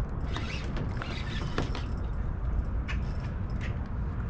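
Fishing reel and tackle clicking and creaking at irregular intervals while a hooked fish is reeled in from a kayak, over a steady low rumble.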